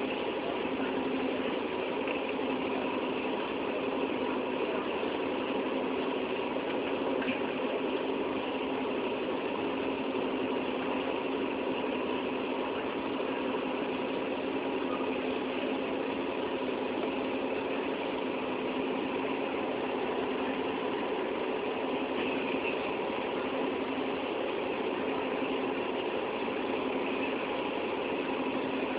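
A train engine running steadily: an even, unchanging hum with a few constant tones.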